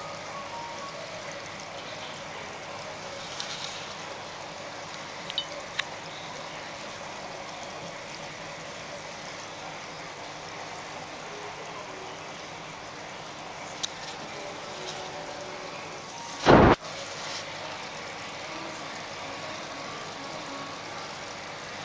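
Steady watery hiss of bubbles from an aquarium air stone, with a few faint clicks and one short, loud bump about three-quarters of the way through.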